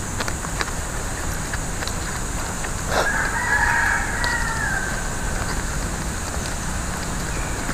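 A rooster crows once, a single held call of about two seconds starting a few seconds in, trailing off at the end. Faint clicks of coconut leaf strips being handled and a steady background hiss run underneath.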